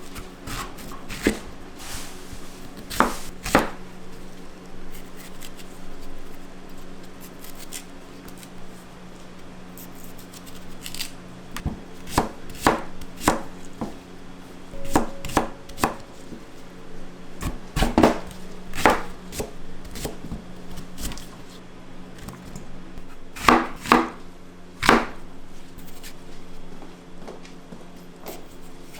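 Knife chopping on a cutting board in irregular strikes, some single and some in quick clusters of two or three, over a steady low hum.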